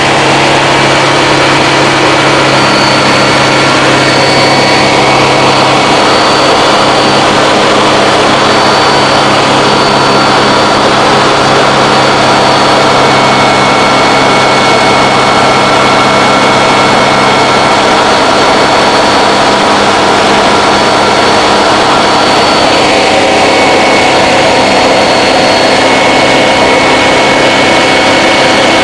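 Kitfox IV light aircraft's piston engine and propeller running at climb power just after takeoff, heard loud inside the small cabin. The drone is steady, with slight shifts in pitch twice.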